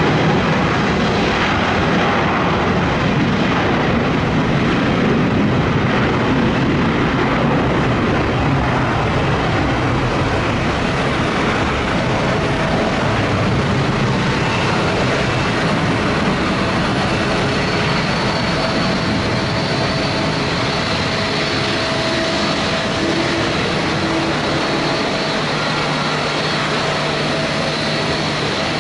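Boeing 777 twin-jet engines at takeoff thrust, a loud steady rumble that slowly fades as the airliner departs, with faint whining tones coming through in the second half.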